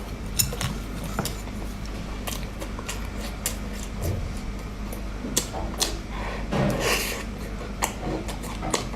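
Close-miked eating: irregular crunching, clicking and crackling as food is chewed and handled, with a longer scraping crunch about seven seconds in, over a steady low hum.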